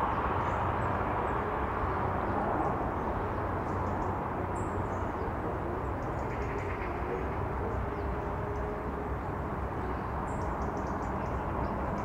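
Outdoor ambience dominated by a steady low rumble of distant engine noise. A few faint, short high bird chirps come through, around four seconds in and again around ten seconds in.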